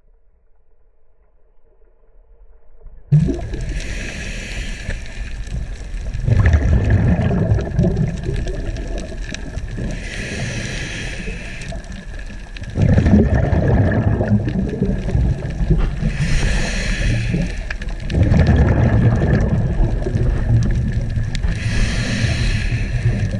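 Scuba diver's breathing through a regulator heard underwater: a short hissing inhale, then a longer rumble of exhaled bubbles, repeating about every six seconds over a steady high tone. It starts about three seconds in.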